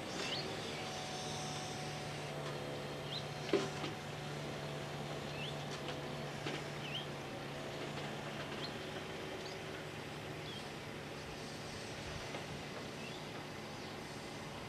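Scania R440 timber truck's six-cylinder diesel running steadily, driving the hydraulics of its V-Kran V13 loader crane as the crane swings and grabs logs. A single knock comes about three and a half seconds in, and a few bird chirps sound over the engine.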